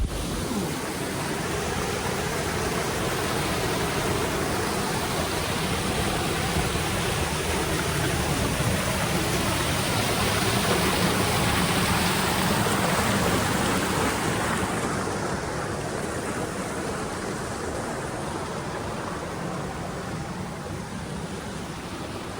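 Rushing water: a steady noise that swells to its loudest about halfway through and eases off toward the end.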